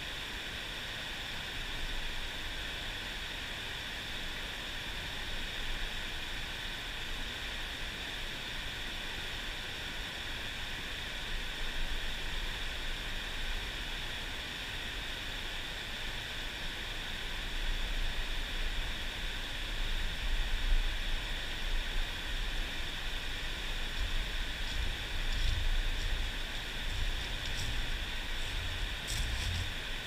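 Mountain stream water rushing steadily. A low buffeting rumble comes in after about halfway, and a few faint clicks sound near the end.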